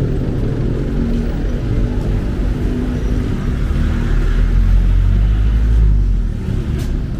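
Street traffic noise with motor vehicle engines running; a low engine rumble grows louder about four seconds in and falls away about six seconds in, as a vehicle passes close.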